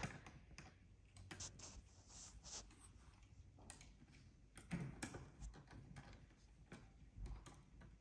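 Faint scattered clicks and small scrapes of hand work at a doorbell chime's wiring terminals, as the screws are turned down over the bypass jumper wires. A couple of the clicks, about five and seven seconds in, are a little louder.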